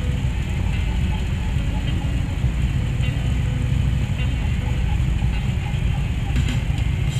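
Motorcycle engine running at a steady cruising speed, a constant low rumble mixed with rushing wind and road noise.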